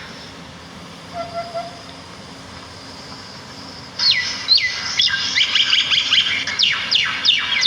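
Small songbirds calling: a quiet stretch with a faint high hiss and one short low note, then about halfway through a sudden loud run of rapid chirps that sweep steeply down in pitch, many overlapping.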